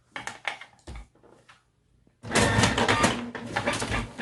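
A few faint paper rustles, then about two seconds in an electric paper shredder motor switches on suddenly and runs loudly and steadily.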